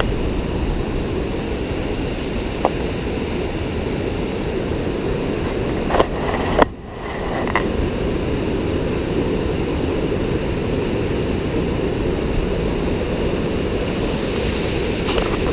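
Steady rushing noise of a mountain river and waterfall, a continuous roar with no rhythm. It breaks off abruptly for a moment about halfway through, then resumes as before.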